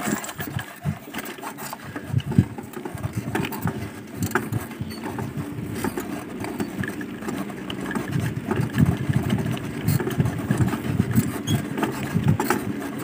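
Ride noise from travelling along a paved road: an uneven low rumble with scattered knocks and rattles from the moving vehicle and the air over the microphone.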